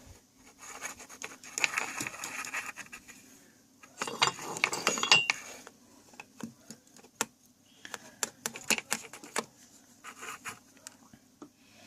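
A BF glue and alcohol mixture being stirred in a small container, the utensil scraping and clicking against it. There are two longer spells of scraping in the first half, then scattered separate clicks.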